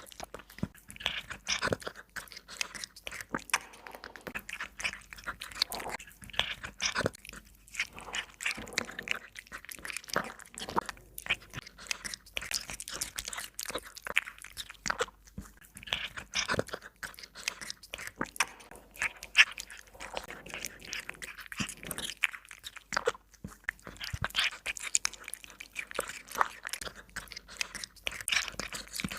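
A cat chewing and crunching food close to the microphone, a dense, irregular run of crunches and bites.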